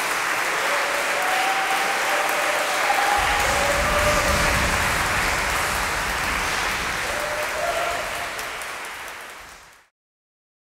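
Audience applauding, with a few faint voices over it; the applause fades away and cuts to silence near the end.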